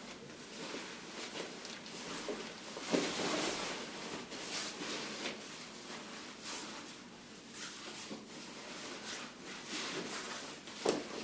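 Waterproof rain pants rustling and swishing as they are pulled on and hitched up at the waist, with several louder swishes and a few soft knocks.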